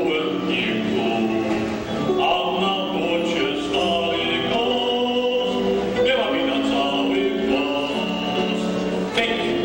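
Vocal group singing a song together in held notes, several voices sounding at once, with a male voice at a microphone among them.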